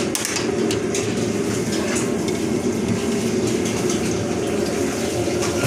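Steady, even roar of commercial kitchen equipment around a hot tandoor, with a few faint metal clicks of an iron rod against the oven.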